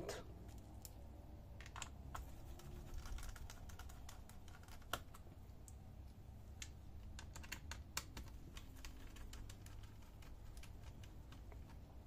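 Faint, irregular small clicks and ticks of a small screwdriver working the screws that hold the battery in a laptop's plastic and metal chassis, with a few sharper taps now and then.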